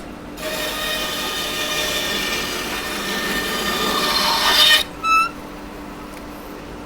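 Bandsaw cutting through a block of wood for about four seconds, the cut getting louder toward the end before stopping suddenly, with the saw's steady motor hum underneath. A brief high squeak follows shortly after.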